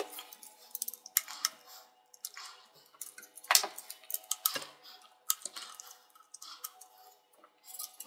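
Scattered clicks, clinks and short scrapes of a screwdriver and a perforated steel hard-drive caddy being handled as the drive's screws come out, with the loudest clink about three and a half seconds in. A faint steady hum runs underneath.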